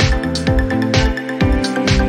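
Electronic background music with a steady drum beat over held synth tones.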